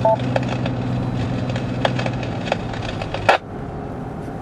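Mobile UHF ham radio's speaker: a short two-note beep, then crackling static with sharp clicks, and a loud burst of noise about three seconds in, over the car's steady road drone.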